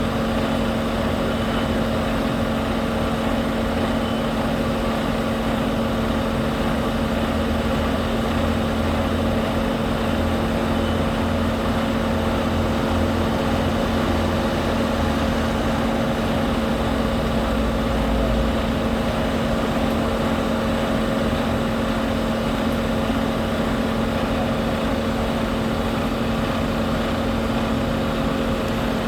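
Large engine running steadily with a constant hum, its deep rumble swelling for a while in the middle.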